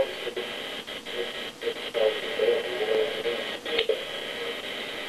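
Electric hair clipper buzzing steadily as it cuts hair, with muffled radio-like sound in the background.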